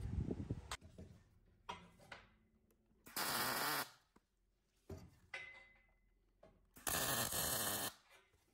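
Workshop tool sounds: a few light knocks and clicks, then two abrupt bursts of steady hiss about a second long, a few seconds apart.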